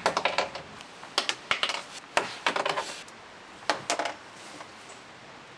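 Small screws clicking and clattering in several short bursts, handled from a plastic tub and dropping onto the plastic floor of a cabinet as they fall off a non-magnetic driver bit.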